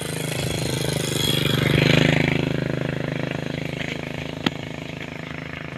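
A motor vehicle's engine running, growing louder to a peak about two seconds in and fading again as it passes, with one sharp knock about four and a half seconds in.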